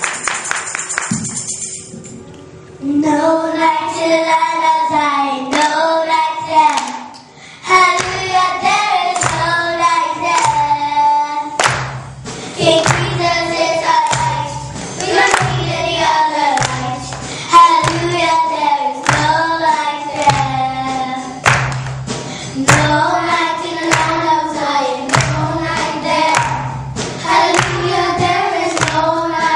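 A group of children singing a song together, with a steady beat underneath. The singing comes in about three seconds in, after a brief instrumental passage fades out.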